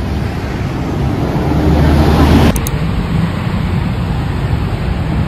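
Street traffic: a city bus passing close, its engine and road noise swelling for about two seconds. The noise then cuts off abruptly into steadier traffic.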